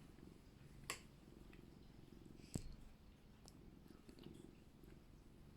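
Domestic cat purring softly and steadily, with a couple of faint clicks about one and two and a half seconds in.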